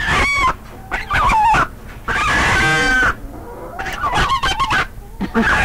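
Chickens clucking and squawking in a string of short calls, with one longer drawn-out call about two seconds in.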